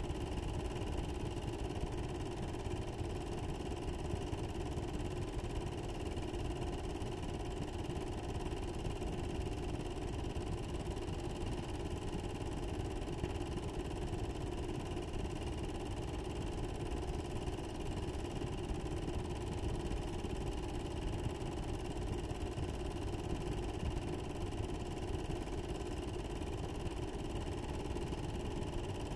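A steady, unchanging mechanical hum with a low rumble beneath it, constant throughout.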